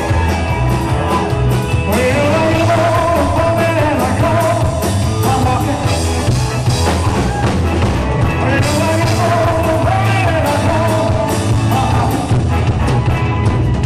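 A live rock-and-roll band playing loudly, the drum kit keeping a steady driving beat. Over it a wavering melody line rises and falls in two long phrases.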